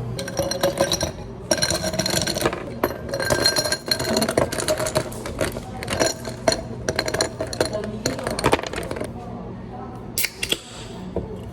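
Ice cubes clinking and rattling against a glass in a quick, busy run of clinks that stops after about nine seconds, then a couple of sharp clicks near the end. A steady low hum of cafe equipment sits underneath.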